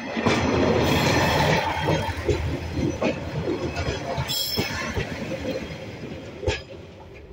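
A British Rail Class 142 Pacer diesel railcar passes close by, engine and wheels on the track loudest in the first two seconds, then fading as it moves away. A few sharp clicks from the wheels on the rails come through as it goes.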